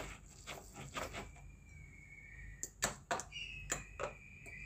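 Irregular clicks and taps of a metal fork poking and scraping minced chicken loose inside the hopper and around the blades of a red plastic hand-crank chopper. A faint, thin, high steady tone sounds twice in the background.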